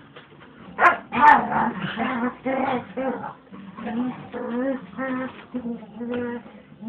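Dog vocalizing while play-wrestling with another dog. There are two sharp yelps about a second in, then a string of short, wavering whine-growls, about two a second, with the talking-like quality of a dog that 'talks'.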